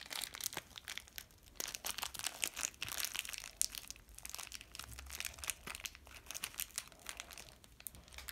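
Thin clear plastic bag crinkling and crackling in a child's hands as he works at it, in quick irregular crackles throughout.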